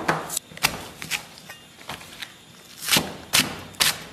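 Chinese cleaver chopping red scallions on a thick round wooden chopping block: a run of sharp knocks of the blade striking the wood, uneven in pace, with a short pause in the middle.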